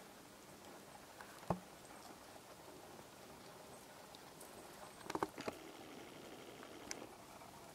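Japanese macaques breaking twigs and bark while foraging in a tree: a few faint, sharp snaps and clicks, a single loud snap about a second and a half in and a quick cluster of snaps a few seconds later.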